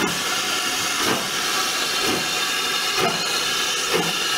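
BR Standard Class 5 steam locomotive 73156 moving off slowly, with a steady hiss of steam and an exhaust chuff from the chimney about once a second.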